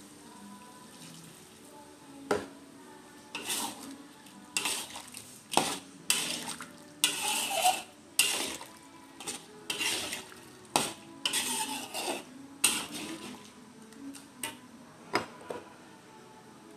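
Metal spatula clanking and scraping against a wok as it stirs prawns in a thick sauce, in irregular strokes with a few longer scrapes.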